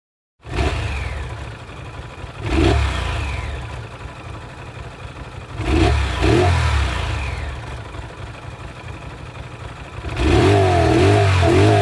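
Motorcycle engine that comes in suddenly about half a second in and runs at idle. Its throttle is blipped once about two and a half seconds in and twice around six seconds in, each blip rising and falling back. Near the end it is revved in quick repeated bursts.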